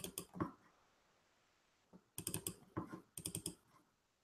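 Computer mouse clicking faintly in quick bursts: double-clicks opening folders. A few clicks come at the start, then several rapid clusters in the second half.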